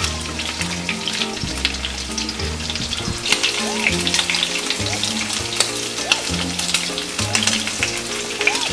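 Starch-coated shrimp frying in shallow oil in a pan: a steady crackling sizzle as chopsticks turn them. Background music with a bass line plays over it.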